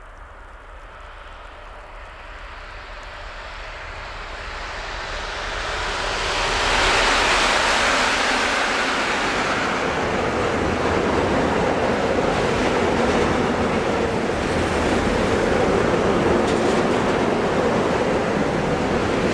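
A freight train of tank wagons approaches and passes close by. The rush grows louder until the locomotive goes by about seven seconds in, then the wagons' wheels roll past on the rails with a steady rumble.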